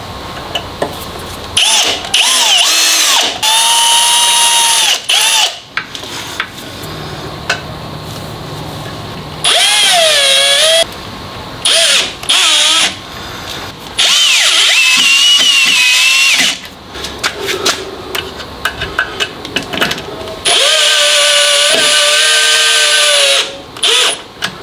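Cordless drill drilling pilot holes and driving screws into a steel trailer drawbar. It runs in several bursts of one to three seconds, its whine rising and falling in pitch as the trigger and load change.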